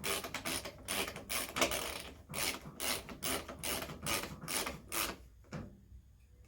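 Socket ratchet wrench being worked in short repeated strokes, its pawl clicking about two or three times a second, stopping about five and a half seconds in.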